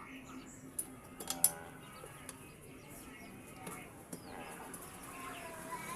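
Steel tyre levers clicking and clinking against a scooter wheel rim and tyre bead as the tyre is worked, a handful of sharp clicks with the loudest about a second and a half in.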